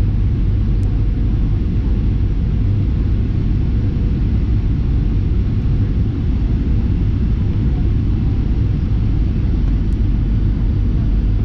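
Steady low rumble of a Boeing 737-800 heard inside the passenger cabin: engine and airflow noise, unchanging throughout.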